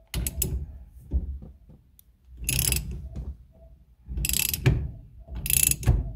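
Socket ratchet clicking as it turns a nut down the steering shaft, loading the tilt column's spring stack so the snap ring can be seated. A few light clicks come first, then three quick bursts of clicking about a second apart.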